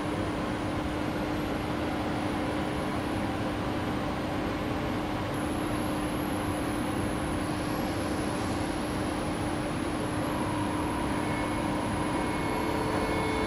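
SBB Re 460 electric locomotive standing at the platform, humming steadily with a constant low tone. Near the end, higher steady whining tones join in.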